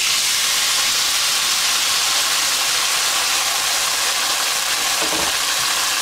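Blended tomato and chile salsa hitting hot lard in a pot, sizzling loudly and steadily from the moment it goes in.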